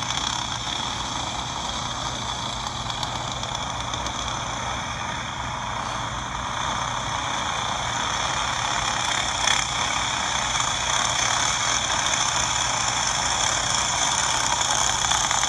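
A pack of racing go-karts' small engines running together in a steady high-pitched drone, heard through a phone's speaker, growing louder about halfway through.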